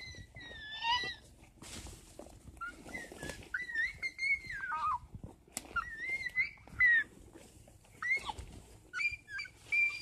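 A person making high, squeaky whistle-like calls in imitation of birds: a string of gliding notes, some rising, one long one falling away near the middle, with pauses between. Brush rustles underfoot now and then.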